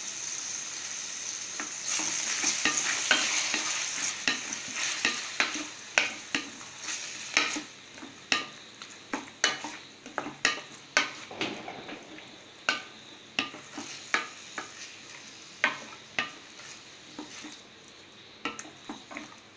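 Chicken pieces, onions and tomato sauce sizzling in a stainless-steel pan while a wooden spatula stirs them, scraping and knocking irregularly against the pan. The sizzle is loudest in the first few seconds, then dies down.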